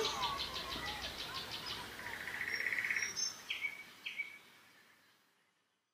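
Small birds chirping over a faint outdoor ambience: a fast run of high pulsing chirps, then a short buzzy trill, then two brief chirps, with the whole sound fading away to silence near the end.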